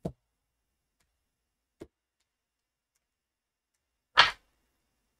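Tarot cards being handled: a short click at the start, a faint tick near the two-second mark, then one loud, short slap about four seconds in as a card is laid down on the spread.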